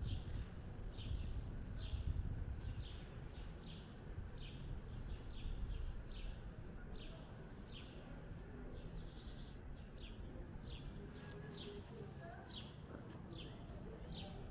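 A small bird chirping over and over, short falling high chirps at about two a second, over a low outdoor rumble.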